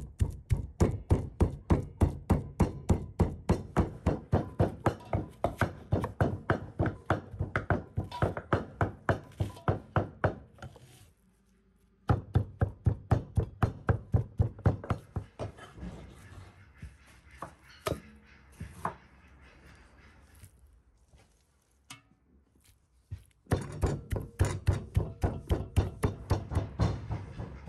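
Knife chopping steadily on a cutting board, about three to four strokes a second. It stops briefly, then goes on in fewer, scattered taps with a short silence, and picks up the steady chopping again near the end.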